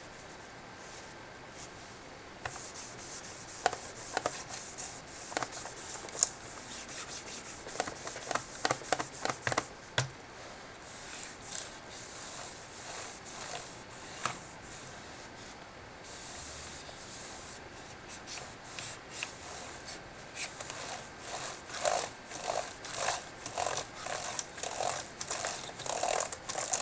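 Microfiber cloth damp with rubbing alcohol rubbing back and forth over a laptop's plastic case, in repeated strokes that come thick and fast near the end.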